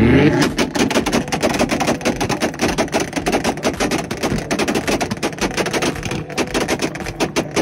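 Honda S2000 four-cylinder engine held on a two-step launch limiter, its exhaust firing a rapid, continuous string of loud pops and bangs, many a second.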